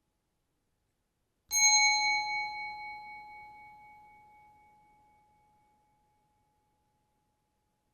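A bell struck once about a second and a half in, ringing with a clear tone and several higher overtones that fade away over about four seconds with a slight wavering.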